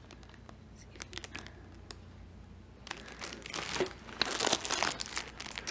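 A few faint clicks, then, about three seconds in, plastic packaging crinkling as baby-product samples are handled in a cardboard box.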